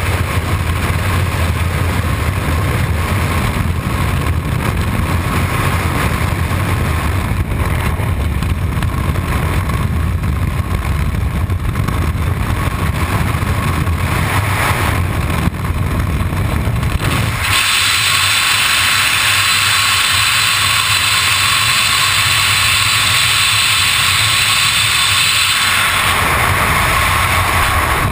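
Loud, steady rush of freefall wind buffeting a helmet camera's microphone. About two-thirds of the way through it turns to a higher, hissier rush for several seconds, then drops back to a lower rumble near the end.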